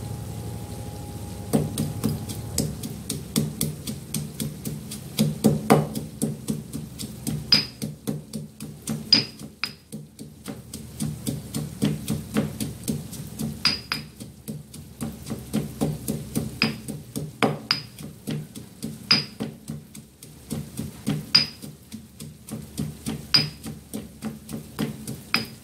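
Stone pestle pounding dried shrimp in a stone mortar: a long run of sharp, repeated knocks, about two or three a second, some with a bright click. It starts about a second and a half in over a frying sizzle.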